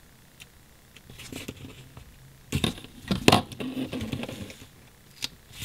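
Paper handling on a desk: a sticker and the planner page being moved and rubbed, with light rustling and crinkling that is loudest about three seconds in, and a few small clicks and taps.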